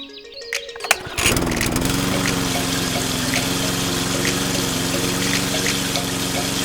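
A small electric motor switches on about a second in, dips briefly in pitch as it spins up, then runs at a steady hum with a faint regular ticking.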